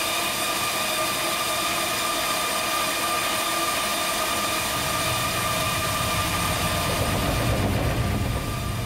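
NAVCO railside railcar shaker vibrating a hopper railcar to unload it: a steady, loud mechanical hum with a high whine, and a deeper rumble that builds from about five seconds in.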